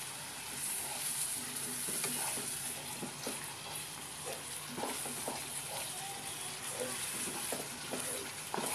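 Thick masala paste sizzling in a hot nonstick kadai, thinned with a little water, while a wooden spatula stirs and scrapes through it in short, irregular strokes over a steady frying hiss.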